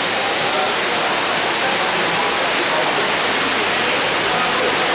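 Steady rush of running water in a fish-farming tank, with faint chatter underneath.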